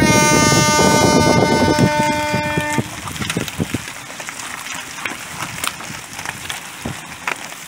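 Air horn blowing one steady, loud blast of about three seconds: the start signal for a road cycling race. After it, many short clicks of cleats and bike gear as the pack of cyclists rolls off.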